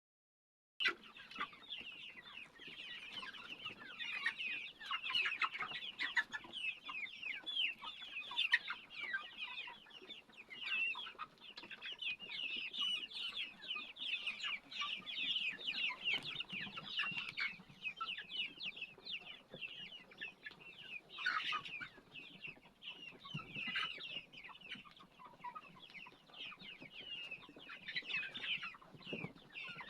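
A large flock of chickens calling continuously, many overlapping clucks and high-pitched calls with no pause, starting just under a second in.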